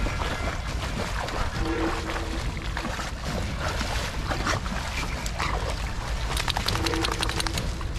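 Splashing, sloshing and rustling of a person wading and crawling through water hyacinth in a muddy marsh, a dense run of crackles over a steady low rumble. Two short low whines stand out, about two seconds in and near the end, likely from the dog.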